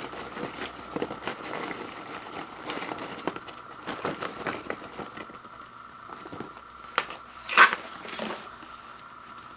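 Microwave popcorn packaging being handled: scattered light rustling, crinkling and small taps, with one short, louder crinkle about three quarters of the way through.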